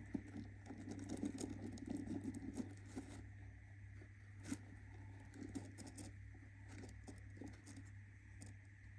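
Budgie moving about in its nest box: faint scratching and rustling with scattered light clicks, strongest in the first few seconds and then fainter, over a steady electrical hum.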